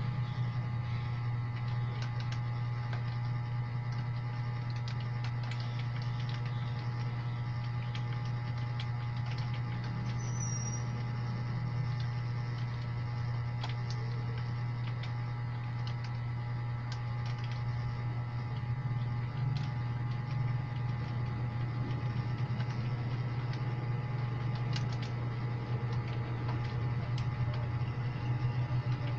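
Keyboard keys being typed, irregular faint clicks, over a loud steady low hum.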